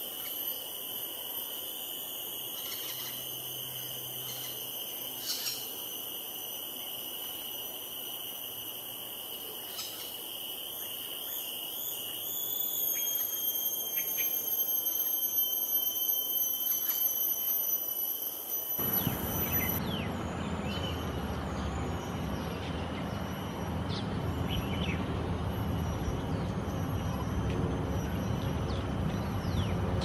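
Steady high-pitched insect drone with a few brief faint bird chirps. About two-thirds of the way through, a low rumbling background noise comes in suddenly, and the high drone fades soon after.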